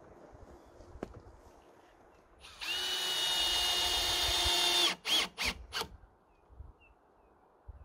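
Cordless drill working into a wooden post: one steady run of about two and a half seconds, then three short bursts of the trigger.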